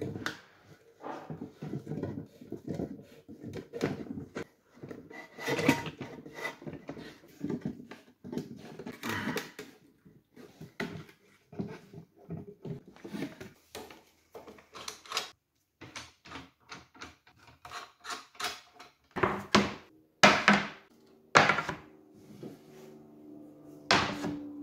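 Steel bar clamps being slid and tightened on a glue-up of oak boards: irregular clicks, knocks and rubbing of the metal clamp heads on the bars and wood, with a few louder knocks near the end.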